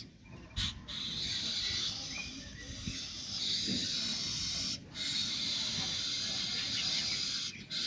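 A steady hiss, cut off briefly two or three times, over a faint low rumble.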